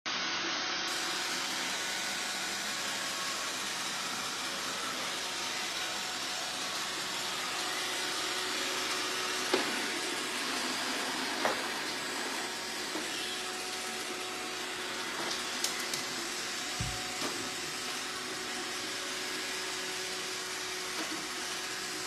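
Roomba robot vacuum running with a steady whirring hum, with a few short knocks and one low thump in the second half.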